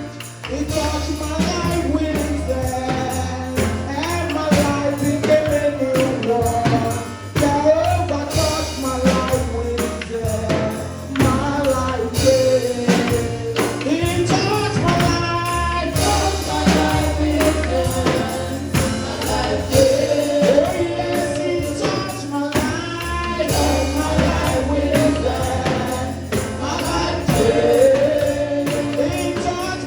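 Live gospel choir music: voices singing over a band with a steady low bass line and a prominent tambourine.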